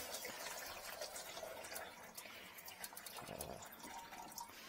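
Faint trickling and dripping of water draining from a kitchen sink, with light scattered clicks; the drain, just cleared of a clog, is flowing freely.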